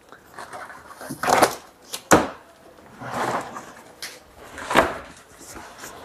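Large cardboard washing-machine carton being handled and unpacked: scuffs and rustles of the box, with a few sharp clicks, about two seconds in and again near five seconds.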